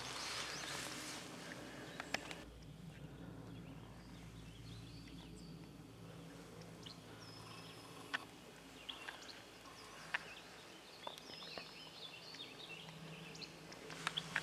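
Quiet outdoor ambience: soft rustling at first, then faint short bird chirps and a few scattered sharp clicks over a low steady hum.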